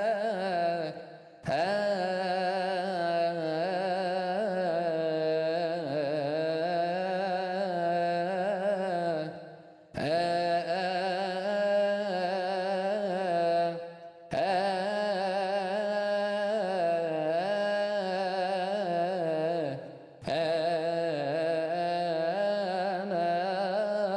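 A solo male voice singing a melismatic Arabic church hymn, drawing each word out over long wavering held notes. The phrases are long, with short breaks for breath about a second, ten, fourteen and twenty seconds in.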